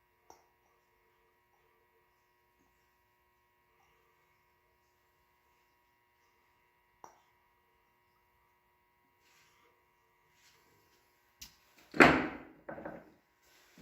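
Faint steady electrical hum with a couple of light clicks. Near the end comes a loud knock with a clatter, then a shorter, weaker one.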